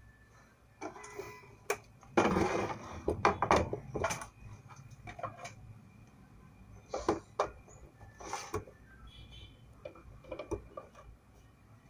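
Handling noise from an induction cooktop's plastic body being turned over on a table: a clattering, scraping stretch about two seconds in, then scattered knocks and clicks.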